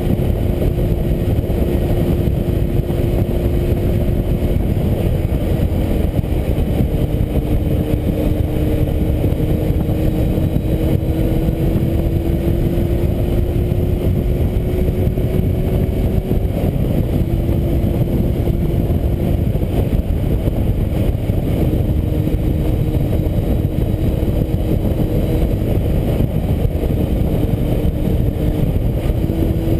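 Kawasaki Z750 inline-four with a Scorpion aftermarket exhaust running at a steady highway cruise, its engine note holding a near-constant pitch under a heavy rush of wind noise.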